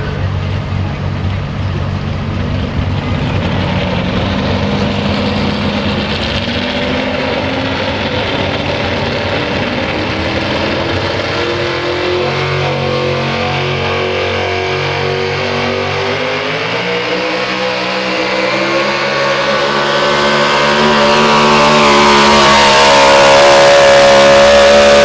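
Half Breed class pulling truck's modified engine running with a loping idle at the start line, then climbing in pitch and getting louder about two-thirds of the way in as the truck pulls the weight sled, loudest near the end.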